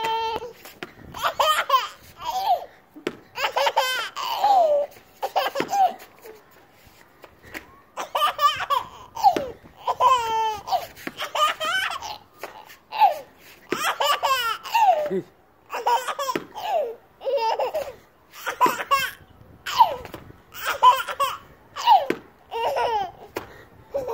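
A baby boy laughing in repeated short bursts of high-pitched giggles and belly laughs, with a brief lull about six seconds in.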